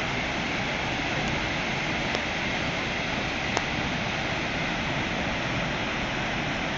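Steady rushing of the large San Rafael waterfall, a continuous even noise of falling water, with a single faint click about three and a half seconds in.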